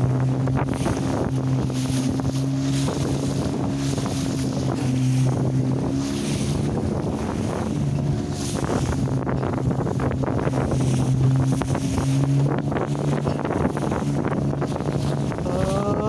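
Small boat's motor running at a steady cruising hum while the boat crosses choppy sea, with wind buffeting the microphone and water splashing against the hull.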